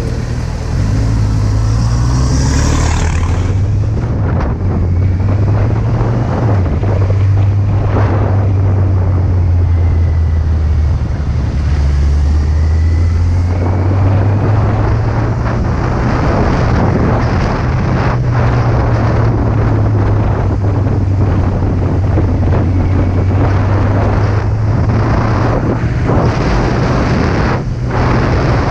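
Kawasaki Z800's inline-four engine running while riding, its note shifting in pitch a few times in the first half, under heavy wind rush on the action camera's microphone.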